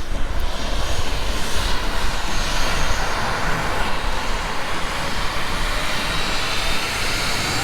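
Airliner engines at takeoff power: a loud, steady rush of engine noise, with a faint high whine coming in over the second half.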